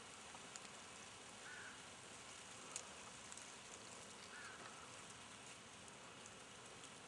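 Near silence: a faint steady outdoor hiss with a few scattered light ticks, and two faint short chirps, one about a second and a half in and one about four and a half seconds in.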